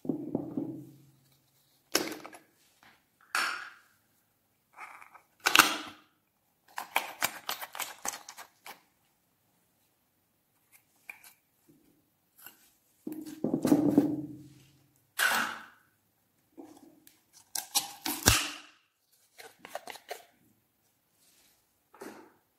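Clear slime squished and pressed by hand in a glass dish: wet squelches and sticky crackling pops in separate bursts with short pauses, and a quick run of clicky pops about seven seconds in.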